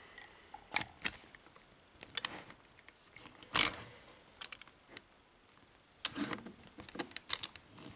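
Brass Lockwood lock cylinder being clamped into a bench vise: scattered metallic clicks and knocks as it is seated in the jaws and the screw handle is tightened, the loudest a sharp knock about three and a half seconds in and a quick run of clicks near the end.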